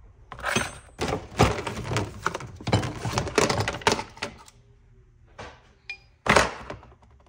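Hand tools and plastic storage tubs being handled on a workbench: a run of irregular clattering knocks and scrapes, then a louder knock about six seconds in.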